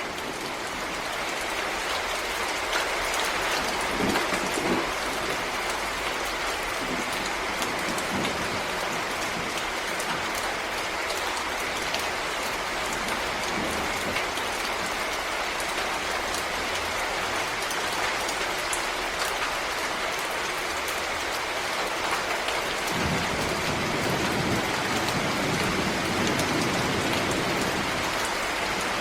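Steady rain falling in a forest, a dense, even patter of drops. A deeper rushing grows in after about twenty-three seconds.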